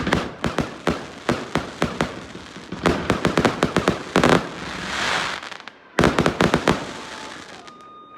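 Firecrackers and fireworks exploding in a rapid series of sharp bangs. A dense rattle of reports comes about three seconds in, then a hissing swell around five seconds, and another quick volley of bangs just after six seconds, before the noise dies away.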